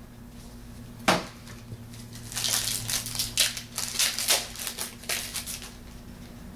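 Trading-card pack wrapper being torn open and crinkled, with one sharp click about a second in, then a few seconds of rustling and crackling.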